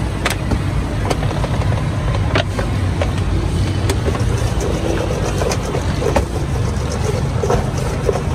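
Steady low rumble of road traffic, with scattered light clicks and rattles from fries being tossed in a steel bowl, more frequent in the second half.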